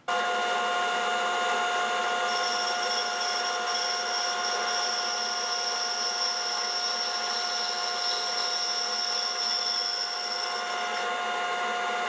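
Band saw running and slicing a thin veneer disc off a segmented wooden disc. A steady machine hum runs throughout, with a high whine added while the blade is in the cut, from about two seconds in until near the end.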